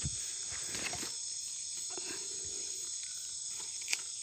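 Steady high-pitched buzzing of forest insects, with soft rustles in dry leaf litter and one sharp click a little before the end.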